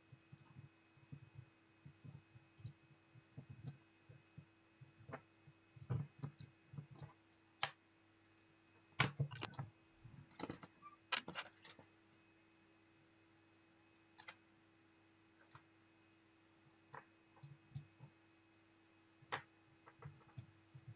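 Hands handling the parts of a small robot car kit on a tabletop: irregular light clicks, taps and knocks as the battery pack, board and jumper wires are moved and fitted, busiest about nine to eleven seconds in. A faint steady hum runs underneath.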